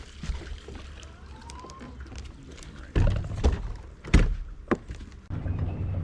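Several hollow knocks and thunks of gear against a boat, the loudest a little over four seconds in. About five seconds in, a boat motor starts with a steady low hum.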